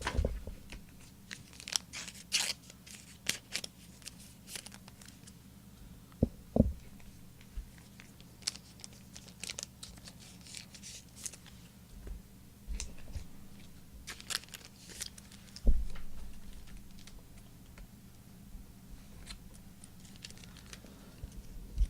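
Trading cards and foil pack wrappers being handled on a table: scattered soft crinkles, slides and rustles, with an occasional light knock, over a faint steady hum.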